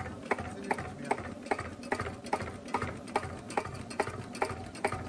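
Cunewalder single-cylinder hopper-cooled diesel stationary engine running at a deliberately very slow idle, each beat a sharp knock, about two and a half a second, over a low rumble.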